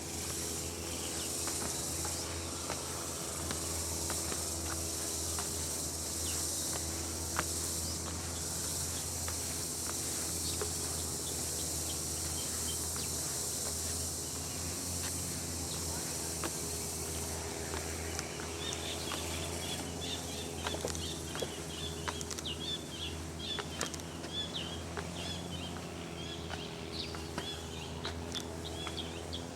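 Insects buzzing in a steady, high, even drone. About two-thirds of the way in the drone gives way to a run of short, high chirps. A steady low hum runs underneath throughout.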